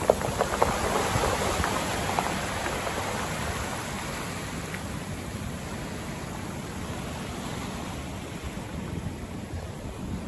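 Wave backwash draining over a cobble beach, the rounded stones knocking and clacking together as the water rolls them. The clacking is strongest in the first two seconds or so, then the hiss of the wash settles into a steadier, softer surf noise.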